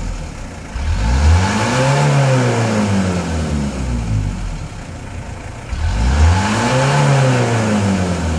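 Small truck's engine revved twice from idle, each rev climbing for about a second and falling back. This is a free-rev test to check the exhaust smoke of an engine the owner calls rather smoky.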